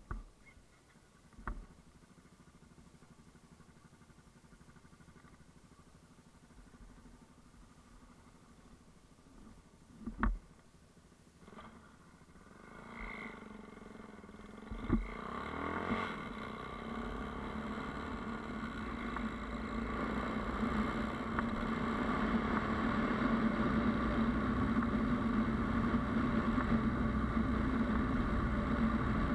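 A few sharp knocks, then a Yamaha Ténéré motorcycle engine comes in about twelve seconds in, gliding up in pitch and growing louder before settling into a steady run.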